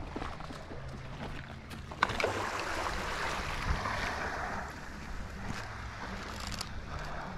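Wind buffeting the microphone over small waves washing on the beach, with one sharp click about two seconds in.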